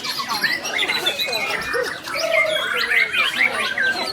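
White-rumped shama (murai batu) singing without pause: a rapid, varied run of rising and falling whistles mixed with harsher squawk-like notes, and a held wavering lower note partway through.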